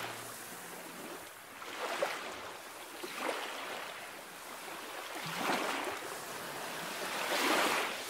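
Sea water washing into a rock pool on a rocky shore: small waves surge in and drain back between the stones. There are about four swells of splashing a second or two apart.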